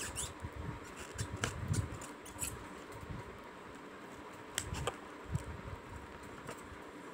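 Knife slicing through a steamed, chilled roll of taro leaves layered with gram-flour paste, with sharp clicks and soft knocks as the blade meets the plastic plate, coming in a cluster about a second and a half in and again near five seconds. A steady faint hum runs behind.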